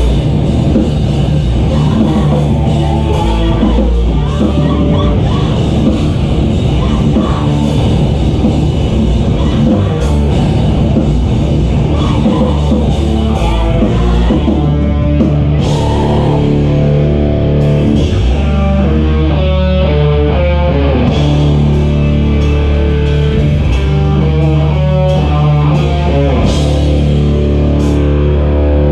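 Rock band playing loudly live, with guitar, bass and a drum kit.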